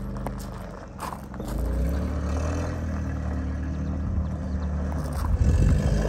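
Machinery running steadily with a low, even hum. Near the end, footsteps crunch on gravel.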